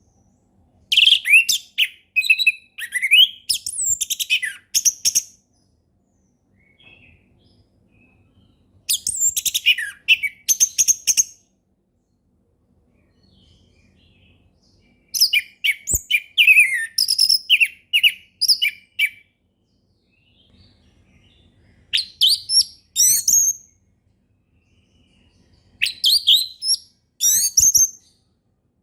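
An orange-headed thrush singing in the wild. It gives five phrases of varied, quick whistled notes, each about 2 to 4 seconds long, separated by pauses of a few seconds.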